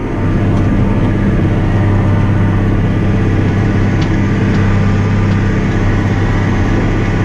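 Massey Ferguson 6480's six-cylinder diesel engine running steadily while the tractor drives across the field, heard from inside the cab as a constant low drone.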